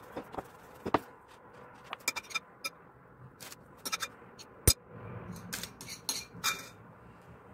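A wooden rolling pin rolls dough on a wooden board, then scattered light knocks and clicks as the pin is set down and a small metal cutter presses circles out of the dough. The sharpest click comes about halfway through.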